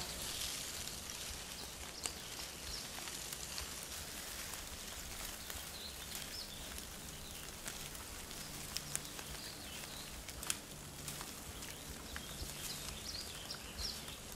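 Forest ambience: a steady faint hiss with a few scattered sharp clicks and some faint high chirps, more of them near the end.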